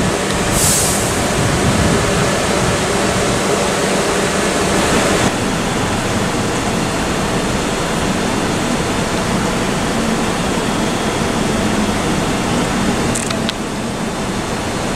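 Steady rushing noise with a low hum from electric multiple-unit trains at a station platform. The noise changes abruptly about five seconds in, then settles into the hum of coupled Class 375 and Class 377 units standing with their equipment running. A short hiss sounds about half a second in.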